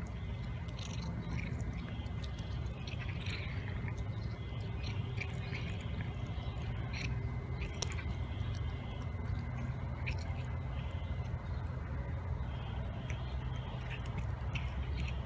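Cat chewing raw chicken wings: irregular small clicks and mouth noises of biting and tearing at the meat, over a steady low background rumble.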